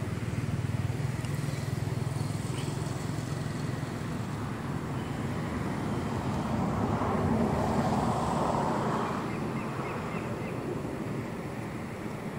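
Motor vehicle noise: a steady low rumble, with a vehicle passing by that swells to its loudest about seven to nine seconds in and then fades.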